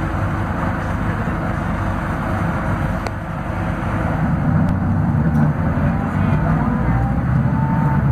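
Scania DC09 five-cylinder diesel engine of a Scania K280UB city bus pulling uphill, heard from inside the passenger cabin. Its low drone eases briefly about three seconds in, then grows louder.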